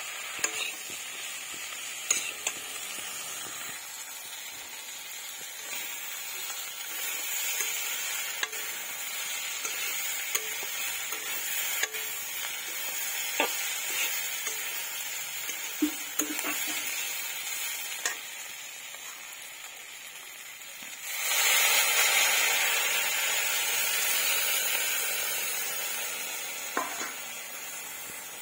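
Eggplant and green chillies frying in fish oil in an iron kadai, stirred with a metal spatula that clicks and scrapes against the pan. About three-quarters of the way through, a sudden, much louder sizzle breaks out as liquid goes into the hot pan, then slowly dies down.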